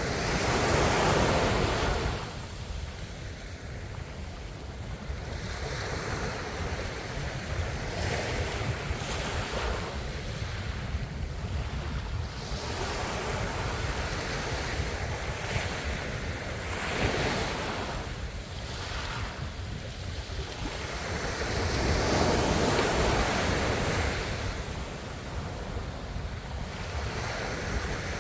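Ocean waves breaking on the shore, the surf swelling and ebbing in repeated surges, the loudest near the start and again about two-thirds through.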